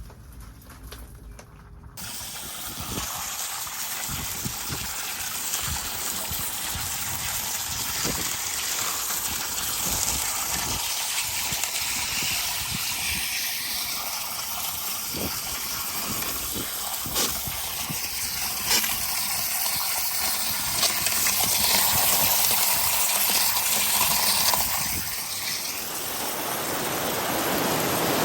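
Water gushing steadily over LECA clay pebbles as they are rinsed of dust. The water starts suddenly about two seconds in, with scattered light clicks and knocks over it.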